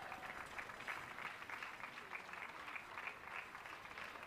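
Crowd applauding, many hands clapping steadily.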